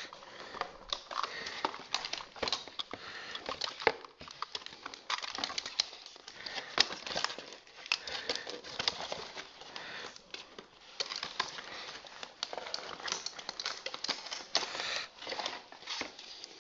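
Cardboard and plastic packaging rustling and crackling, with many irregular clicks and light knocks, as a toy robot is worked out of its cardboard insert by hand.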